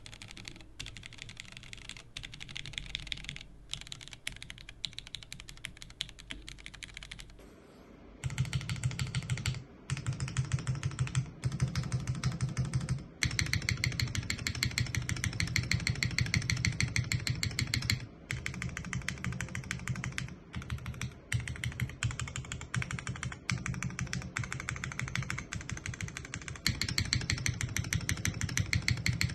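Custom top-mount Merisi 500C/M mechanical keyboard with Cherry MX2A Nixie linear switches on a polycarbonate plate and doubleshot keycaps, keys typed and spammed in rapid runs of clicky-clacky keystrokes with brief pauses. About eight seconds in the pickup changes from a close dynamic mic to a phone's camera mic, and the keystrokes turn louder with a deeper, fuller thock.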